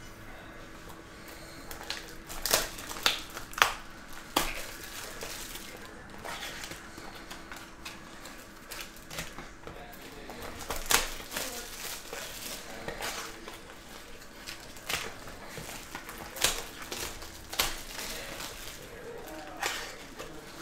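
Plastic shrink wrap and a foil pack wrapper crinkling as sealed trading-card mini boxes are unwrapped by hand, with scattered sharp clicks and taps from the boxes being handled.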